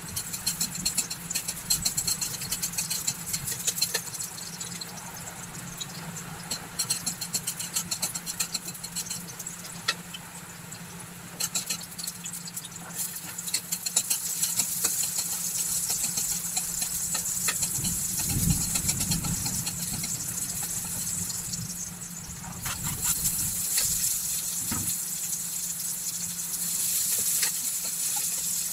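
Ginger and garlic sizzling in hot oil in a steel wok, stirred with a metal spatula that clicks and scrapes against the pan, over a steady low hum. The sizzle grows louder in the second half as onion and lemongrass go in.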